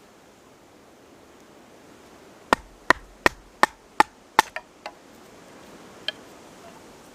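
Wood being chopped: six sharp chopping blows in quick succession, nearly three a second, then two lighter strikes and a single knock a little later.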